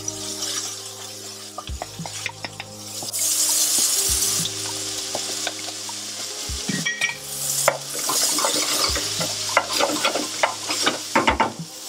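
Mushrooms and diced onion sizzling in olive oil in a frying pan. A garlic press clicks and knocks as garlic is squeezed into the pan. Near the end comes a quick run of knocks and scrapes as the pan is stirred.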